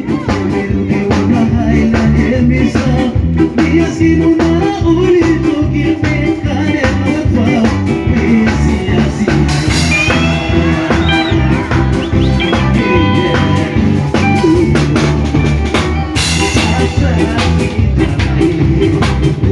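Band music: a cover song played on drum kit, bass and guitar over a steady beat.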